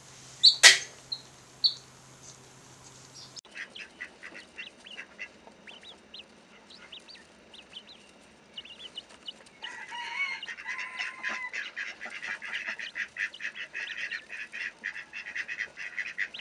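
A newly hatched chick peeps loudly a few times near the start. After a sudden change, a small group of quail calls with scattered short high chirps, which grow into a dense, rapid chatter in the second half.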